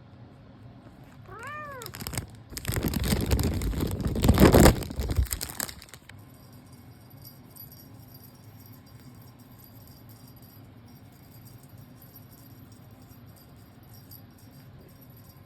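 A kitten gives one short meow, rising then falling in pitch, about a second and a half in. Then comes about four seconds of loud rattling and rustling, which stops suddenly.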